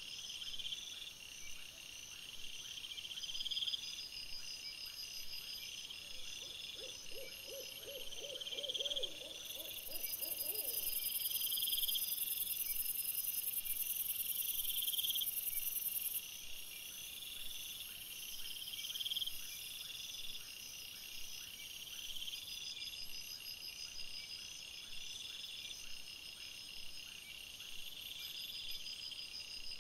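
Night insect chorus of crickets trilling in short repeated bursts. A louder, very high buzz runs from about a third of the way in to just past the middle. A short series of lower pulsed calls comes in briefly just before it.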